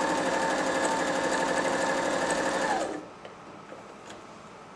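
Janome 525S sewing machine running steadily as it sews a stitch, then stopping about three seconds in with its motor pitch dropping as it winds down. A few faint clicks follow. Its running sound is one the demonstrator takes as the sign of a nicely put together, well-built machine.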